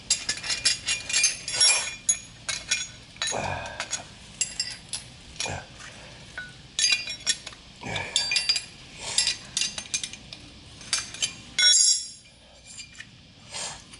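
Irregular run of light metallic clinks and clicks, with a louder knock near the end.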